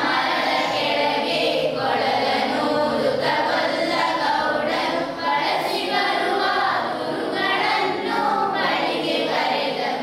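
A choir singing a song as music, many voices together in a continuous, full passage.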